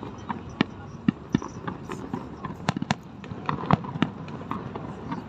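Fireworks display: an irregular string of sharp bangs and crackles, several a second, over the murmur of a crowd.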